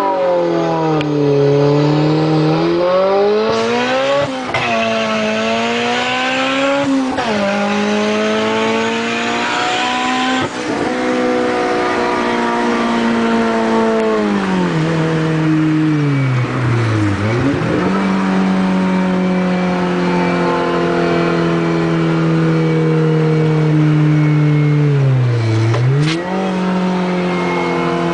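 Turbocharged Honda Civic VTi four-cylinder engine held at high revs while the clutch is slipped, the revs sagging under load and climbing back several times, with a deep dip and recovery about 17 s and 25 s in.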